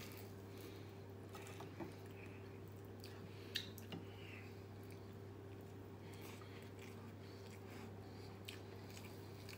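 A person chewing and biting into a fried chicken wing with a few faint mouth clicks and smacks, over a steady low hum.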